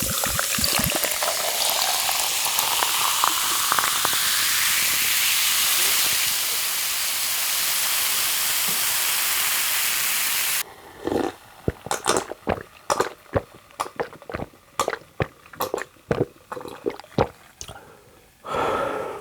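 Liquid pouring steadily into a container for about ten seconds, the pitch rising as it fills, cutting off suddenly; then close-miked eating sounds, sharp smacks and clicks of chewing.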